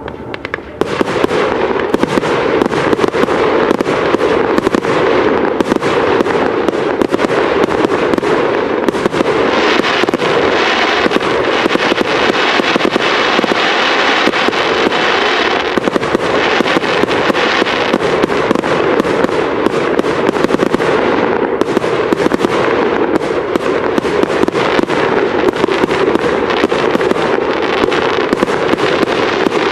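A fireworks display firing a dense, continuous barrage of shells bursting and crackling in rapid succession, starting about a second in.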